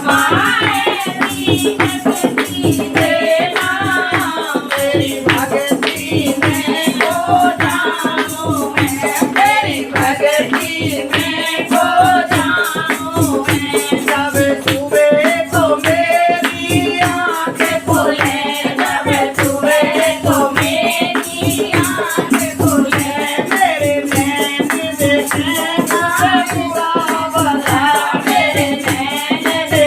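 A Hindu devotional bhajan sung by a woman, her melody gliding up and down over a fast, steady percussion beat and a held low accompaniment.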